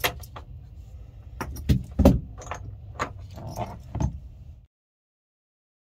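Metal clinks and knocks of a wheelchair tie-down strap's L-track fitting and hooks being handled and lifted off the floor L-track, several sharp strikes over about four seconds. Then the sound cuts off suddenly.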